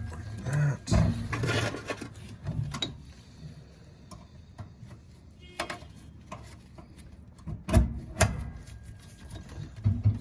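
Scattered clicks, knocks and rubbing of metal parts being handled and refitted on a gas furnace burner, with a stretch of rubbing in the first two seconds and two sharp knocks about eight seconds in.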